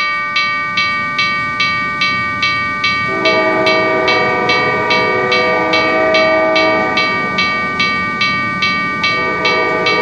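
Railroad crossing bell ringing about twice a second, steady and unbroken, as a freight train passes. A train horn sounds a held chord from about three seconds in until about seven seconds, and again near the end.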